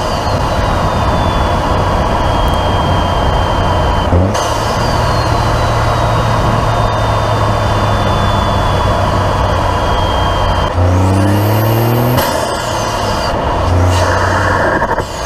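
Toyota GR Corolla's turbocharged 1.6-litre three-cylinder engine heard through an MST Performance intake while driving: a steady engine drone, with the turbo's whistle falling in pitch after the throttle lifts about four seconds in and again near the end. Around eleven seconds in the engine pulls harder and the turbo whine rises steeply, then cuts off at about twelve seconds as the throttle closes.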